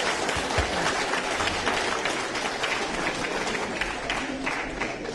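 Crowd applauding with steady clapping that thins out and fades near the end.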